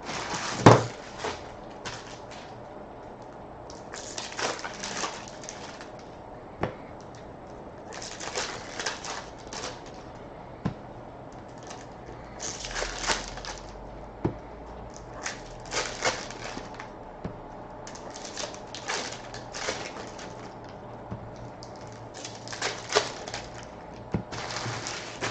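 Trading cards and their pack wrappers being handled: bursts of rustling and sliding a second or two long every few seconds, with sharp taps and clicks between them.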